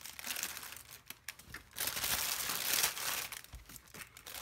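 Thin clear plastic packaging bag crinkling as it is handled, in two stretches: a short one at the start and a longer, louder one from about two seconds in.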